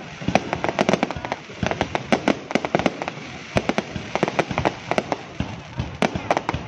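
Aerial fireworks display: a rapid, irregular barrage of sharp bangs and pops from bursting shells, many a second and overlapping, thinning briefly a few times.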